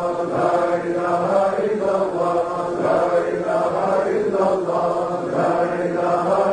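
A group of men chanting dhikr aloud together, a vocal Sufi zikr with a low held tone under repeated chanted phrases that swell in an even rhythm, a little more than once a second.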